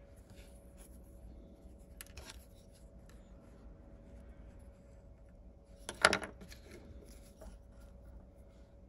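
Light scratching and scraping of a toothpick and a small wooden-handled pick working ground coffee into a hot-glue mould. About six seconds in there is one sharp clack as the pick is put down on the wooden table.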